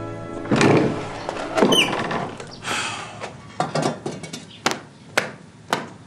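A wooden door thuds and swings open with a brief squealing hinge, then a scrape, followed by footsteps on a hard floor, about two a second.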